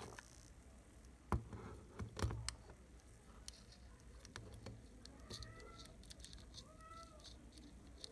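Two sharp knocks of the camera body being handled, then from about five seconds in a cat mewing faintly, a few short calls that rise and fall in pitch, over light ticking.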